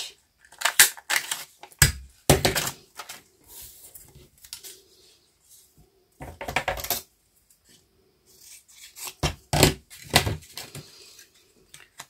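A hand-held plastic paper punch and craft paper being handled and pressed: several short clusters of clicks, clacks and paper rustles.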